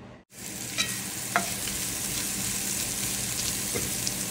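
Green chillies and chopped ginger sizzling steadily in hot oil in an enamelled pot, stirred with a slotted spatula that clicks against the pot a few times.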